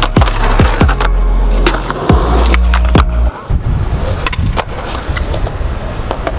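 Skateboard sliding off a concrete curb at the start, then its wheels rolling across rough asphalt, under background music with a steady beat.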